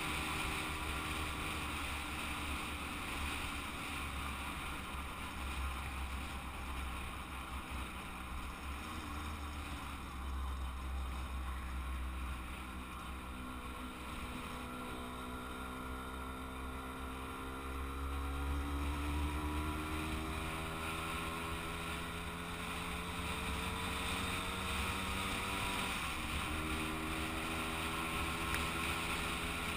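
Kreidler moped's small two-stroke engine running under way, its note climbing slowly as it gathers speed, dropping sharply about four seconds from the end and then picking up again. Wind rumbles on the microphone throughout.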